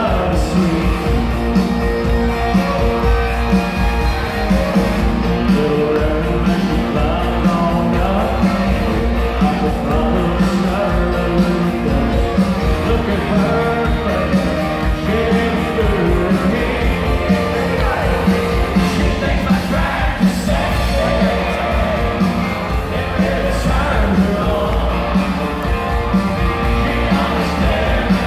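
Live country band (drums, guitars) playing loudly in an arena while a male lead singer sings, heard from the stands.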